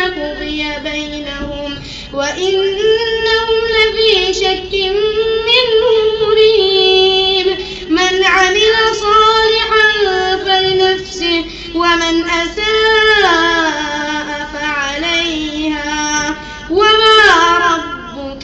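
A lone high voice chanting Quran recitation in melodic tajweed style, in long held and ornamented phrases with sliding pitch and short pauses for breath.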